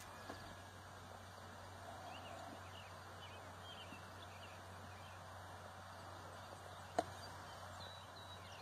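Quiet outdoor background with faint, scattered bird chirps, and one sharp click about seven seconds in.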